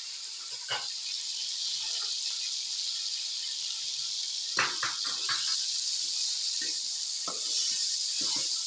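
Chicken and vegetables frying in oil in a pot, a steady sizzling hiss, with a spoon knocking and scraping against the pot several times, a quick cluster of knocks about five seconds in.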